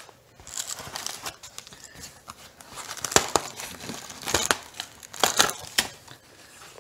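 Plastic wrap and foam packing sheet crinkling and tearing as a pocket knife slits it open: a run of irregular sharp crackles, loudest from about three seconds in.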